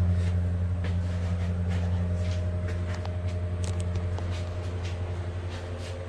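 A steady low motor hum with scattered light clicks and knocks, slowly getting quieter.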